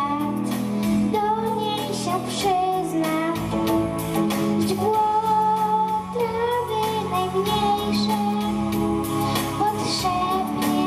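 A young girl sings a song into a handheld microphone, her melody line wavering over an instrumental accompaniment of sustained chords.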